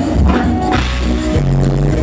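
Band music: a song played with a bass line of held low notes changing about every half second, under a dense mix of instruments.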